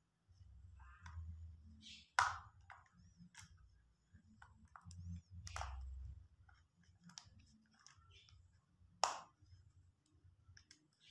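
Faint plastic clicks and knocks as the hinged panels of a folding solar emergency lamp are handled and swung open. Three sharper clicks stand out, about two, five and a half and nine seconds in.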